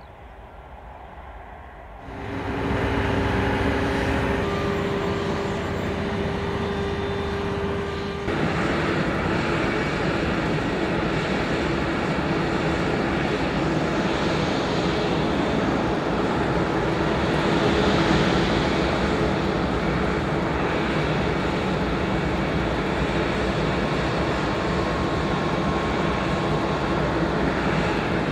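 Airbus A340-600's jet engines running steadily, a loud even rush with a steady whine. The sound cuts in abruptly about two seconds in and changes abruptly about eight seconds in.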